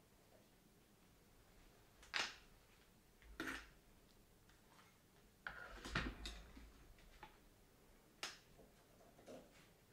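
A few faint, separate clicks and knocks from tools and hardware being handled, with a couple of dull thumps around the middle, against a quiet room.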